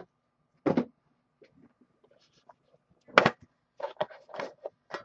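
Handling of a 2013-14 Upper Deck The Cup hockey card box as its lid is worked open: a sharp knock about a second in, a louder one a little after three seconds, then a few smaller knocks and scrapes.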